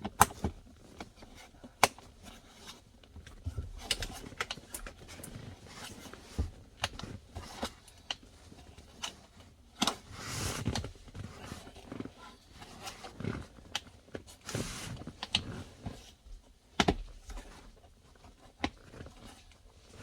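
Scattered clicks, knocks and rustling from hands working a controller module and its wiring harness connector into a car's centre console, plastic parts and cables being pushed and handled.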